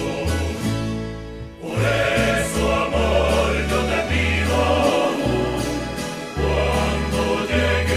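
A bolero played by a rondalla, a serenade ensemble of plucked strings, with a group of voices and a bass line moving from note to note every second or so.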